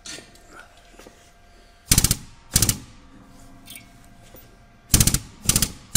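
Hydraulic shop press being worked to force a ball bearing into the end of a steel shaft, pressing a recess. It gives four short bursts of rapid mechanical clattering, in two pairs about half a second apart.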